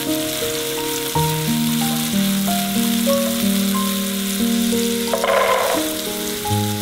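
Food sizzling as it fries in oil in a pan, with a short louder burst of sizzle about five seconds in.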